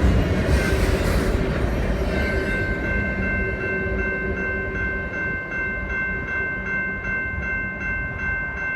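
Freight train passing with a loud rumble of wheels and cars. About two seconds in, a steady high-pitched ringing tone of several pitches joins in and holds.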